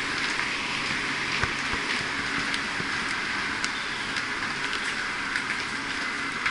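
Footsteps of a crowd climbing stone stairs, with scattered shoe scuffs and taps over a steady hubbub in a busy subway station.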